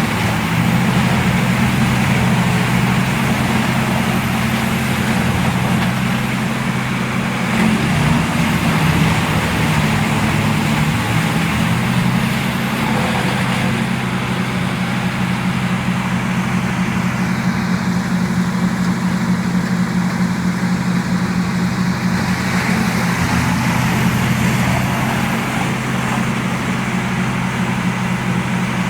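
A large wood chipper's engine running steadily.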